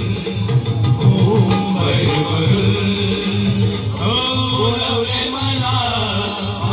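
Men singing a song together into microphones over electronic keyboard accompaniment, heard through the stage loudspeakers. The singing voices stand out most clearly in the second half.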